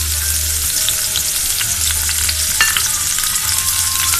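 Sliced onions sizzling in hot oil in a frying pan: a steady hiss with fine crackling and spitting ticks.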